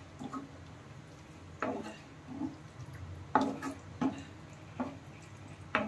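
Spoon stirring a wet tomato-and-yogurt masala in a cooking pot: a string of short, irregular scrapes and knocks, about half a dozen, over a faint steady hum.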